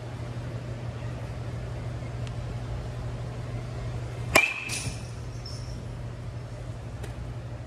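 A metal baseball bat hits a ball off a batting tee about four seconds in: one sharp crack followed by a high ringing ping that fades within a second. A steady low hum of ventilation fans runs underneath.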